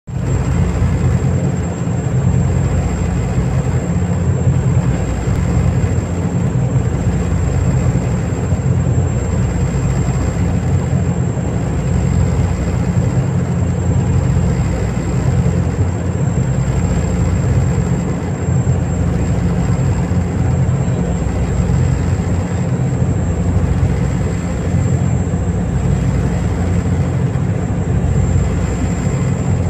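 Steady drone of a fast ferry's engines heard from inside the cabin, with the rush of water along the hull and a thin, high, steady whine.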